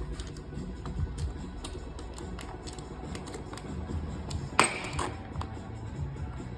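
Radio music playing in the background, with scattered small clicks and taps of work and one sharp, ringing clink about four and a half seconds in.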